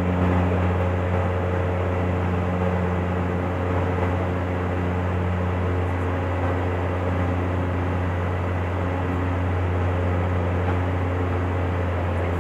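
Cabin drone of a Dash 8-Q400 turboprop in flight: a steady low propeller hum with higher tones over a hiss of airflow.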